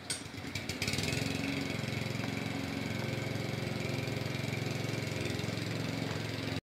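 An engine catches about a second in, after a few clicks, and runs steadily, then cuts off suddenly near the end.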